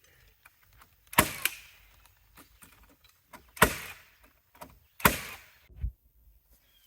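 Nail gun firing galvanized nails into wooden decking boards: five sharp shots at uneven gaps, two close together about a second in.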